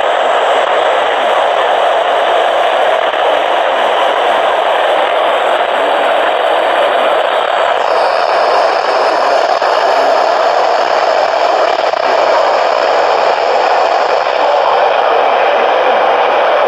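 Steady hiss of radio static from a receiver, with no voice or alert tones in it.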